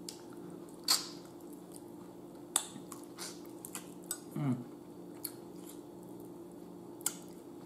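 Close-up eating sounds: scattered lip smacks and wet chewing clicks as baked tilapia is picked off the bone and eaten by hand, with a brief hum of the eater's voice about halfway through.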